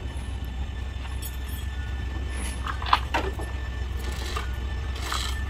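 Steady low hum of a running machine, with a few knocks, one sharp one about three seconds in.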